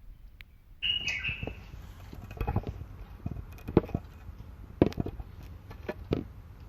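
African grey parrot giving a short high whistling call about a second in, followed by a series of scattered sharp clicks and knocks.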